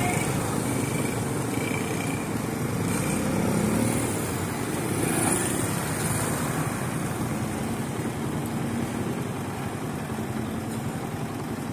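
Steady outdoor street noise, the hum of road traffic and engines, with no clear single event standing out.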